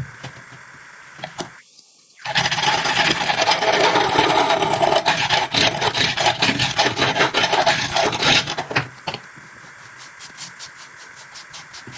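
Abrasive rubbing strokes against the cleaver's steel blade, done by hand in quick repeated passes. After a brief drop about two seconds in they come loud and dense, then carry on more softly from about nine seconds.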